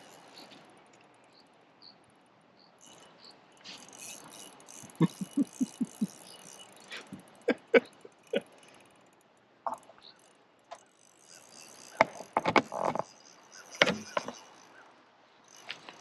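Small spinning reel's drag clicking and rattling in irregular short runs as a big hooked fish pulls line from it. The loudest clusters of clicks come in the last few seconds.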